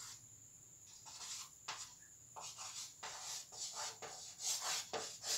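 Chalk writing on a blackboard: a string of short, faint scratching strokes as a word is written out.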